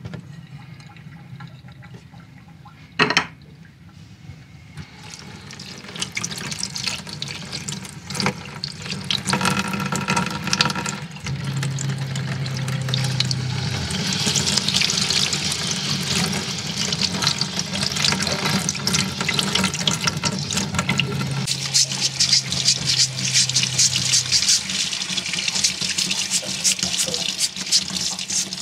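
Tap water running into a sink and splashing through a clogged water strainer's mesh screen as it is rinsed clean of debris. The water gets louder a few seconds in. There is one sharp knock about three seconds in.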